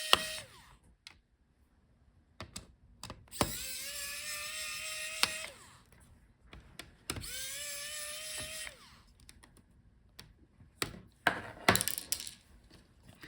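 Small electric screwdriver spinning out laptop heatsink and fan screws: short runs of a whining motor whose pitch rises as it spins up, twice in full, with light clicks of screws and parts being handled between runs and a few louder clicks near the end.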